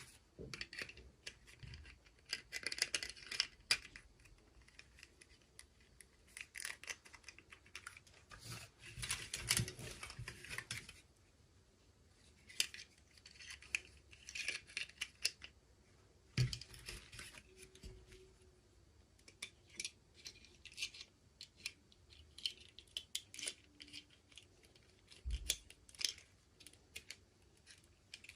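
Toy packaging being handled and opened by hand: irregular bursts of crinkling, rustling and small clicks, with brief pauses between them.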